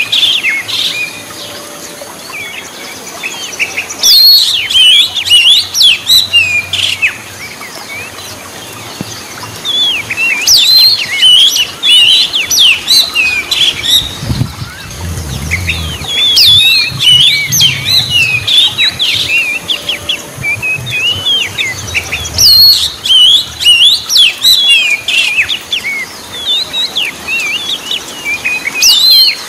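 Oriental magpie-robin singing: bouts of fast, varied whistled and chattering notes, broken by short pauses of two or three seconds.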